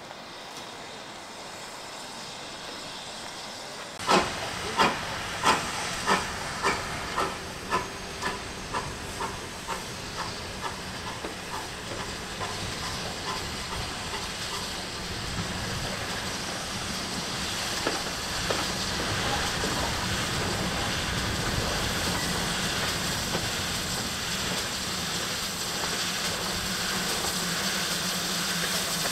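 Steam locomotive starting away. About four seconds in, a first loud exhaust chuff, then chuffs coming faster and fainter until they blend into a steady rush of steam and running train noise.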